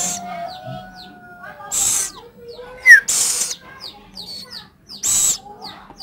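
Scops owl chicks giving rasping hiss calls, about half a second each, repeated roughly every second and a half, with faint short chirps between them.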